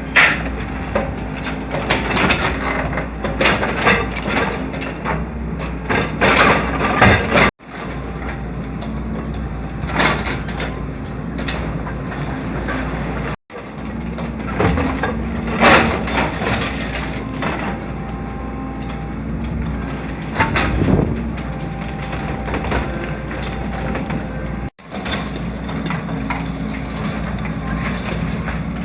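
Hydraulic excavator's engine running steadily while demolition debris, concrete and wood, is crunched and dropped, with frequent sharp cracks and crashes. The sound cuts out abruptly three times.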